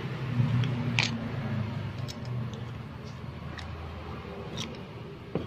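A few light, separate clicks and taps of metal as a carburetor and a hand tool are handled, over a low steady hum.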